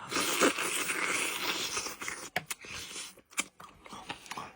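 A person eating barnacles close to the microphone: chewing and sucking noises at first, then several sharp clicks about two seconds in as the shells are worked.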